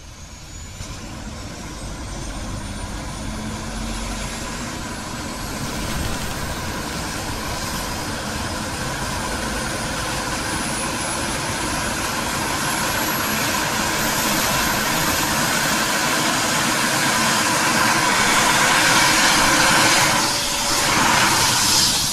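Aircraft engines starting and spooling up: a whine that climbs steadily in pitch over a rushing noise that keeps growing louder, with a brief dip near the end.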